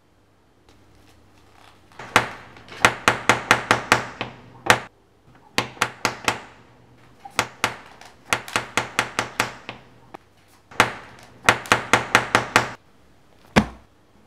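Knocking on a wooden door: several rounds of quick, hard knocks, about three or four a second, with short pauses between rounds and one last single knock near the end.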